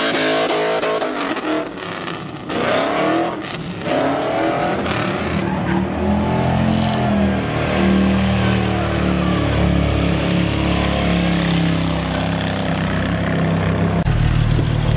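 Fourth-generation Pontiac Trans Am's V8 revving as the car pulls away, its pitch rising and falling. Then a large touring motorcycle is held at steady high revs for a burnout, its engine drone under the hiss of the spinning, smoking rear tyre.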